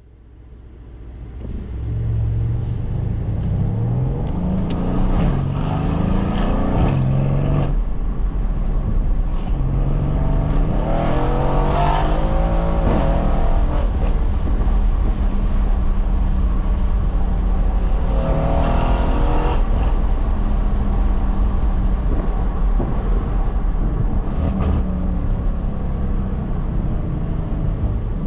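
Mercedes-AMG 4.0-litre twin-turbo V8 driving hard: the engine note climbs in pitch and drops back several times, with a few short sharp cracks, over steady road noise.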